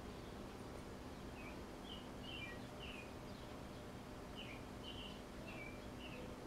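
Small songbirds chirping: short, repeated chirps, roughly two a second, starting about a second in, over faint steady background noise and a low hum.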